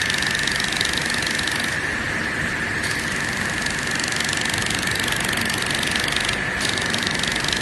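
YAG laser welding machine running: a steady machine hiss with a steady high whine, the upper hiss dipping briefly about two seconds in and again near the end.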